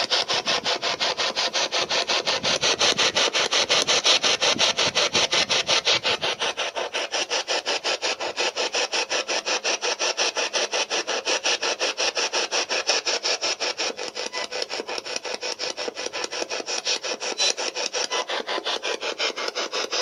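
Handheld ghost-hunting spirit box sweeping rapidly through radio stations, giving a steady, even chop of static bursts several times a second.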